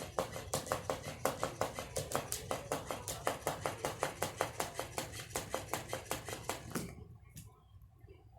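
Battery-operated flopping fish toy clicking rapidly and evenly, about five clicks a second, stopping near the end.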